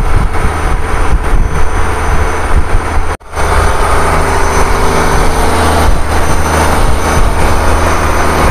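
Fishing boat's engine running steadily under way: a loud, even hum with rushing wind-and-water noise over it. The sound cuts out for an instant about three seconds in.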